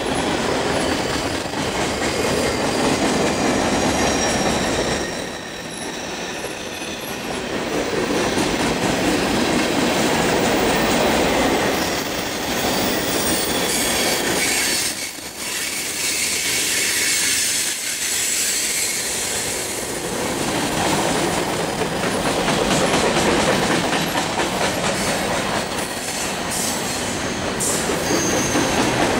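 Freight cars of a long mixed freight train rolling past on the rails: a steady rumble of wheels on track with clickety-clack over rail joints and some high wheel squeal, the sound easing off briefly twice as the cars go by.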